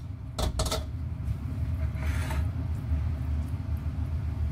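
Metal spatula knocking and scraping against a stainless steel wok as stir-fried vegetable filling is scooped out: two sharp knocks in the first second, then a scrape about two seconds in, over a steady low hum.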